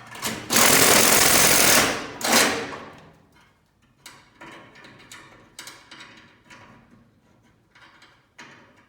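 Impact driver spinning a step drill bit through the sheet metal, with a loud burst of rapid hammering for about a second and a half and then a shorter burst. Quieter clicks and taps follow.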